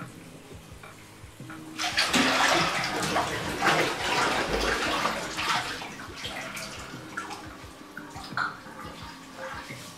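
Bathwater splashing and sloshing as a person surges up out of a full bathtub about two seconds in, then settling into smaller splashes.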